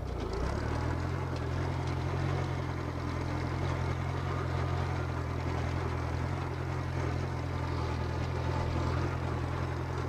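Case 310 crawler dozer's engine running at a steady speed as the machine pushes a blade-load of sand across the ground.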